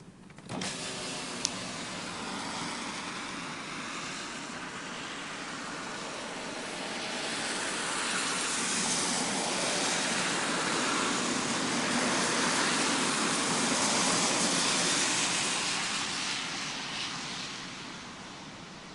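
Car tyres hissing on a wet road as traffic passes, the spray noise swelling to a peak partway through and then fading near the end. There is a single sharp click about a second and a half in.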